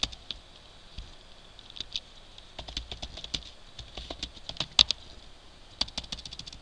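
Typing on a computer keyboard: irregular keystrokes, with a quicker run in the middle and one noticeably louder key strike about two-thirds of the way through.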